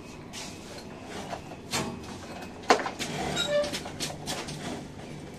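Tools and small metal parts being handled at a reflow oven's side: a few scattered clicks and knocks, the loudest a sharp knock a little under three seconds in.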